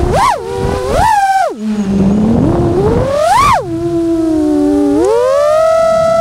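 Nazgul Evoque F6 six-inch FPV quadcopter's motors and propellers whining, the pitch swooping up and down with the throttle: quick punches near the start, about a second in and about three and a half seconds in, a low dip just before two seconds, then a rise at about five seconds to a steady higher whine.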